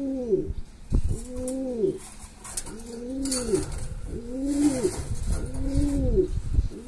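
Male Veleño pigeon cooing: about six coos in a steady series, one a little over every second, each rising then falling in pitch. A single knock about a second in.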